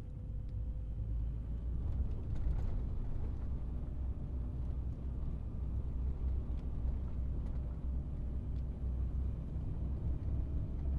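A truck's engine and road noise heard from inside the cab while driving: a steady low rumble that gets a little louder about two seconds in as the truck passes through a concrete tunnel.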